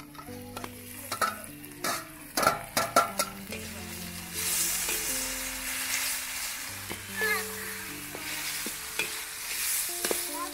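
Chopped tomatoes going into a hot steel wok of frying onions and vegetables. First comes a quick run of metal clinks and scrapes from the slotted spoon on the plate and pan, then from about three and a half seconds in a steady sizzle as the vegetables fry and are stirred.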